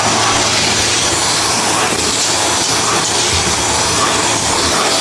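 Vacuum cleaner running steadily at full power: a loud, even rush of air with a low hum under it and a faint high whine.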